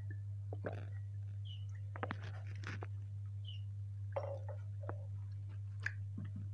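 Water drunk from a glass with soft swallowing sounds, then a few small knocks and clicks about two seconds in as the glass is handled and set down, over a steady low hum.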